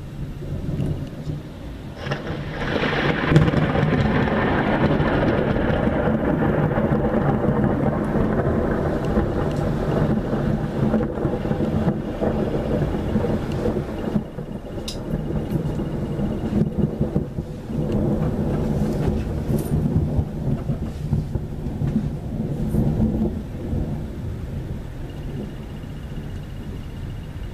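Thunder: a sudden clap about two seconds in, then a long rolling rumble that swells and ebbs. It swells again about eighteen seconds in before dying away.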